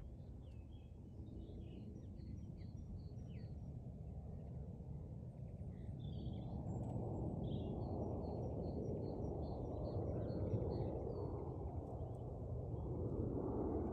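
Distant rumble of a large four-engined military transport aircraft on approach, slowly growing louder. Small birds chirp and sing throughout.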